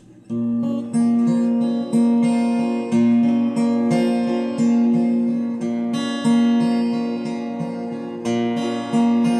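Amplified cutaway acoustic guitar strummed in chords about once a second, each ringing on into the next, with the amp set on delay and reverb. It starts a moment in, after a brief hush.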